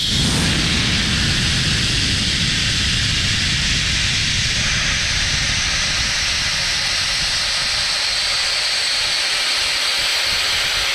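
Compressed air hissing steadily out of the tank of an Ingersoll Rand 60-gallon air compressor as the tank is bled down, with moisture blowing out along with the air. A rougher low rumble under the hiss eases off about halfway through.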